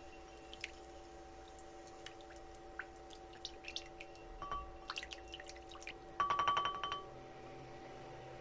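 Silicone spatula stirring a thin egg-and-milk mixture in a glass bowl, with scattered light clicks and splashes against the glass and a quick run of rapid clinks a little past the middle. Faint steady background music underneath.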